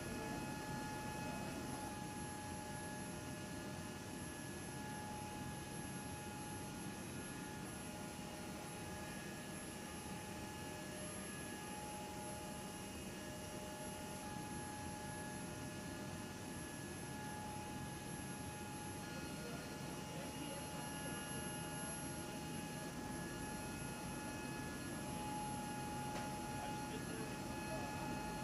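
Steady aircraft machinery drone heard inside a cargo hold: a low rumbling hum with several thin, steady high-pitched whining tones, some of which fade out and come back.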